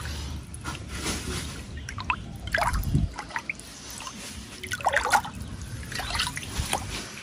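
Shallow water in a tarpaulin tank trickling and sloshing as a hand moves through it, with irregular small gurgles and drips.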